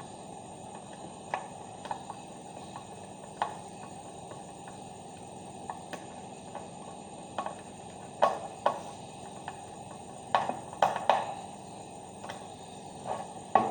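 Scattered light clicks and knocks of small electrical parts being handled, with a cluster of sharper clicks about eight to eleven seconds in, over a steady hiss.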